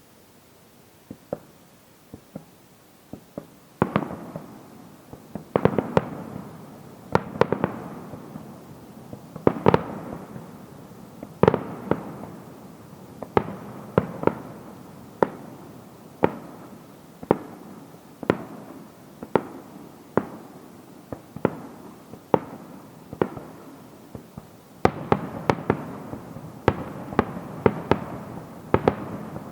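Aerial fireworks shells bursting in a show: a few scattered bangs, then a steady run of loud bangs at about one a second, each trailing off in an echoing rumble. A quicker cluster of bangs comes near the end.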